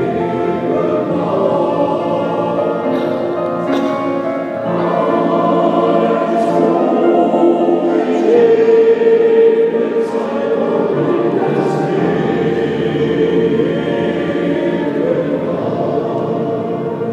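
Men's choir singing in a reverberant church, the sustained chords swelling louder about halfway through, with crisp consonants of the text cutting through now and then.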